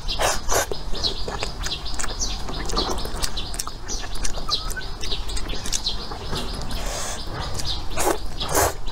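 Noodles slurped into the mouth, in two pairs of loud slurps near the start and near the end, with quieter chewing and mouth sounds between them. Birds chirp in the background.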